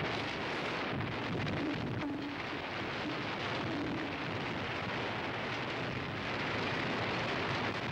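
Tape recording of a tornado tearing through houses: a dense, steady rushing noise of wind, with a faint wavering tone about two seconds in.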